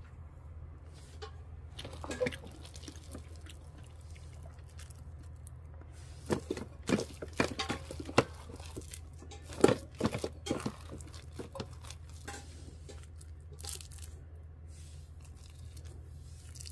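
A rice paddle scooping and scraping soft cooked rice with sweet potato and pumpkin chunks in an electric rice cooker's inner pot: irregular scrapes, squishes and clicks, busiest from about six to eleven seconds in, over a steady low hum.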